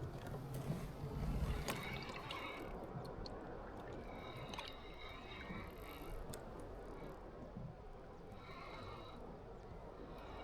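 Water lapping and splashing around a kayak, with scattered small clicks and a faint high squeal at times; a low rumble in the first two seconds.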